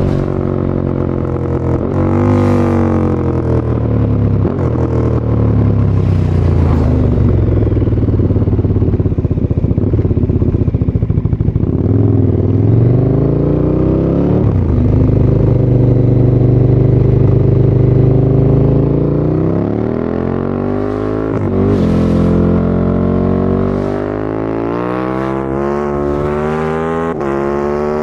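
A KTM 1290 Super Duke R's V-twin, with an open Akrapovic titanium slip-on and no catalytic converter, being ridden. Its pitch falls and climbs several times as the throttle is eased off and opened again. Near the end it pulls hard through a quick run of rising revs, each one broken off short as the quickshifter clicks up a gear.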